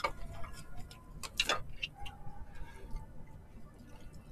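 Light, scattered clicks and taps of chopsticks and a metal fork against plastic takeaway containers while eating, with one louder clack about a second and a half in.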